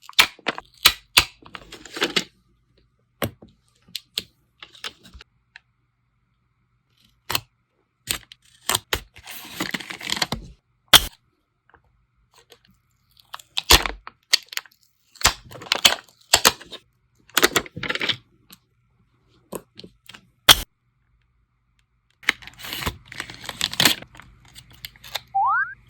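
Plastic sticker packaging and sheets being handled, crinkling, tearing and peeling in short bursts with sharp clicks and taps between and brief silences. A short rising tone comes near the end.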